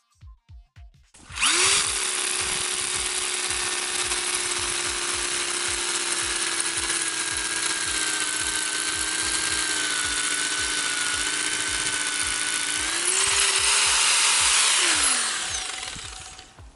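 Hammer drill with an 8 mm SDS-plus masonry bit boring into a reinforced-concrete pier, starting about a second in and running steadily under load. Near the end the motor speeds up slightly, then winds down and stops.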